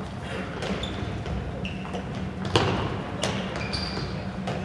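Indoor handball game: the ball thudding as it bounces on the court, with short high squeaks of shoes on the hall floor. The sharpest thud comes about halfway through, with another soon after.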